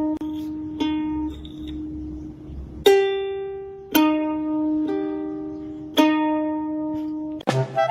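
Background music: a slow melody of single plucked-string notes, each struck and left to ring out.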